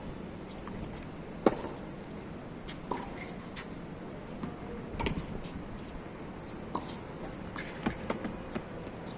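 Tennis ball struck by a racket, one sharp crack about a second and a half in, followed by several quieter knocks of hits and bounces spread over the next few seconds, over a steady background hiss.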